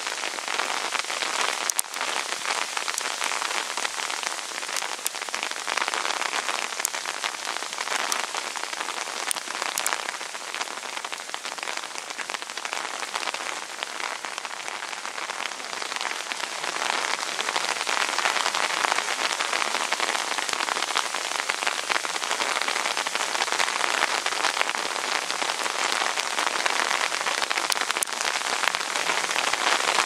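Steady rain falling, a dense even patter with a few sharper drop ticks, growing a little louder after about the middle.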